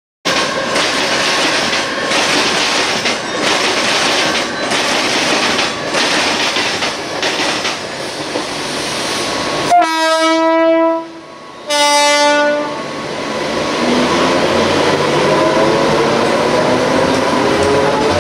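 Mumbai AC local electric multiple unit train sounding two horn blasts, the first longer and the second short, greeting a passing Harbour Line local. It then pulls away with its traction motors whining steadily upward in pitch as it accelerates. Before the horn there is a steady rushing train rumble.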